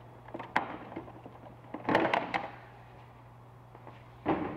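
Plastic battery cover being unclipped and lifted off: a few sharp clicks, then a louder clatter of hard plastic knocks about two seconds in, and one more knock near the end.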